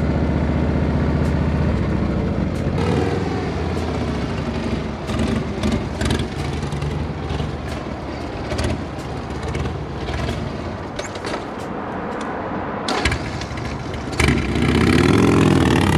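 Motorcycle engine idling, then running through changing revs as the bike is ridden around, with a louder rev rising and falling near the end.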